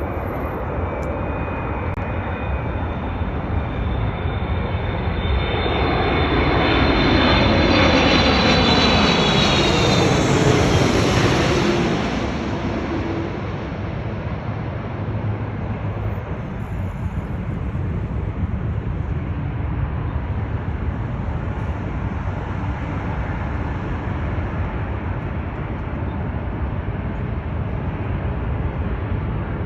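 Boeing 777-300ER jet airliner passing by: its GE90 turbofans swell to a loud rush with a whine that falls in pitch as it goes past, then fade to a steady distant rumble.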